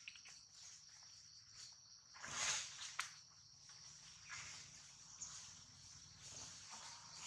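Faint, steady high-pitched drone of insects. About two seconds in there is a brief louder swell of noise, followed by a sharp click.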